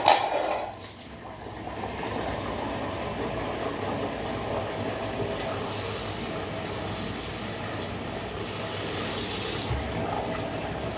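A short clatter of kitchenware at the start, then tap water running steadily into a sink.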